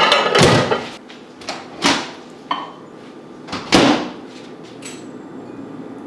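Countertop microwave oven being handled: its door clunks open and shut with a series of sharp knocks, the loudest right at the start and another near four seconds in.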